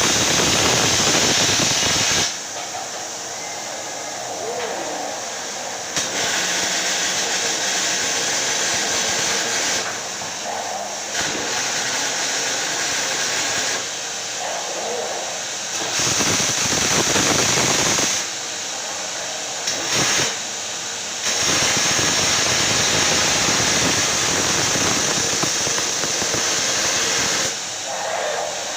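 Welding robot's arc hissing and crackling in stretches of a few seconds, cutting out and starting again several times as it lays successive welds.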